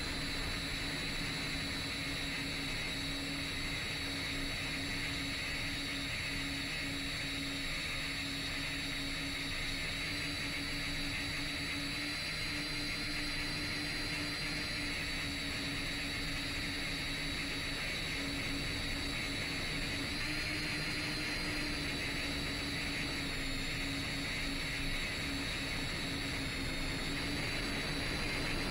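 Motors and propellers of a 10-inch FPV quadcopter running in flight: a steady whine and hum over a hiss, shifting slightly in pitch and falling right at the end.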